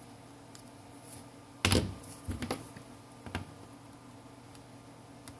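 Suction cup and plastic pick working at a Samsung Galaxy A3's display as it is pried open: one sharp thunk about a second and a half in, then a few lighter clicks and taps.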